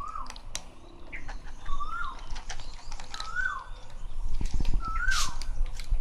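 Cats crunching dry kibble from a plastic bowl, heard as many short sharp clicks. Over it, a bird gives a short call that rises and then falls, four times, about every one and a half to two seconds.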